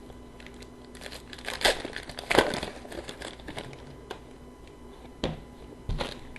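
Plastic wrapper of a hockey card pack crinkling and tearing as it is opened, loudest about two and a half seconds in. Two sharp taps near the end.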